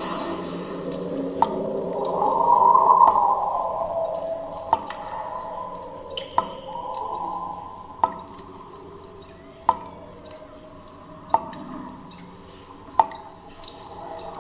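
Water drops falling one at a time, about one every second and a half, over an eerie horror drone that swells and fades.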